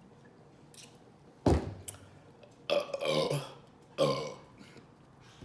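A woman burps three times about a second apart, loud burps from the carbonation of Sprite Lemonade soda. The middle burp is the longest.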